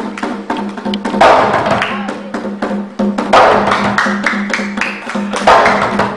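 Somali niiko dance music: quick clicking percussion strikes over a steady low tone, with louder swells about every two seconds.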